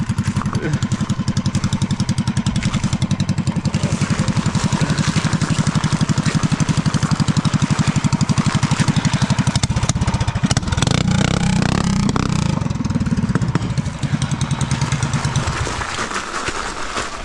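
Small gas engine of a mini trike running with a rapid, even pulsing beat. It gets louder about ten seconds in, then fades away over the last few seconds.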